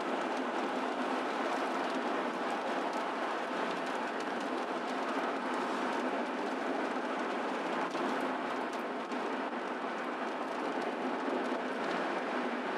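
Steady road and tyre noise of a car driving on a highway, heard from inside the cabin, with a few faint ticks.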